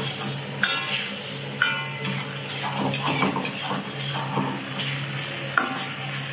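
Metal ladle stirring and scraping vegetables and sauce around a sizzling wok, with three sharp clangs of the ladle against the wok that ring briefly, over a steady low hum.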